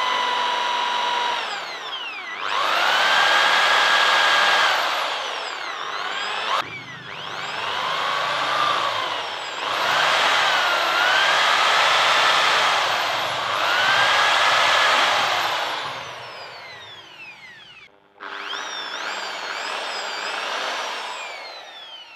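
Electric drill boring into the metal axle nut at the centre of a car's rear drum-brake hub. It runs in several long spells with short stops, and the motor whine rises and falls as the bit loads up and frees.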